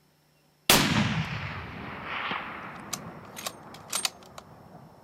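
A single rifle shot, sudden and loud, with a long echo that rolls and dies away over several seconds, followed by a few sharp clicks. The spotter's call just after takes it for another hit on the bull elk.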